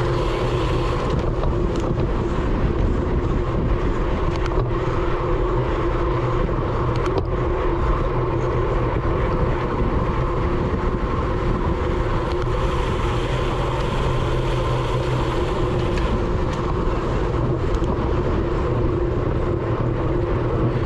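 Wind rushing over an onboard GoPro on a road bike at race speed: a loud, steady rumble with a few constant hum tones running through it.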